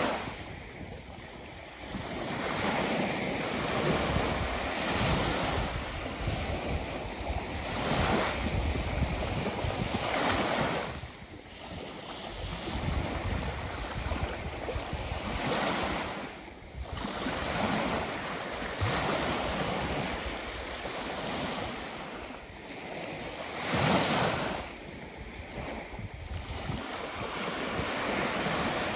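Ocean surf: waves breaking and washing up the shore and back, swelling and easing every few seconds.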